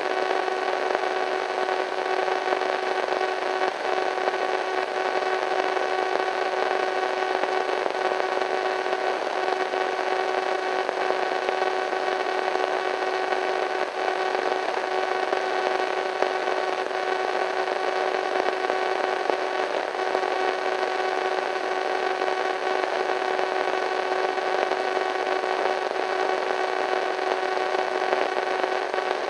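Radio static: steady, even hiss with a few faint steady hum tones running through it.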